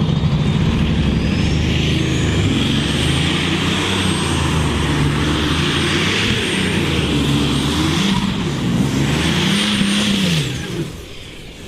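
Light Modified class pulling tractor's engine running at full throttle under load during a pull, with a high whine that climbs over the first few seconds. The engine note wavers as the pull goes on, then the throttle comes off about ten and a half seconds in and the sound drops away.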